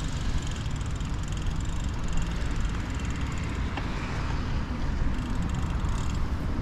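Steady wind rush and low rumble on a chest-mounted GoPro's microphone while riding a road bike, mixed with the tyres running over a wet path.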